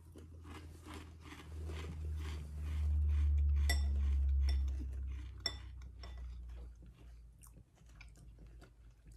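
Mouths crunching and chewing dry Birthday Cake Fruity Pebbles cereal, a run of short crunches every half-second or so. A low rumble swells for a few seconds in the middle, and a couple of sharp clicks sound in the middle of the clip.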